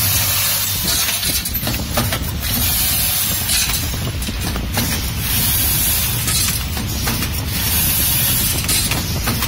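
Automatic screw packing machine running: a steady low hum and rattle from its vibratory bowl feeders, with short hisses of compressed air from the pneumatic sealing jaws every two seconds or so and scattered clicks of the mechanism.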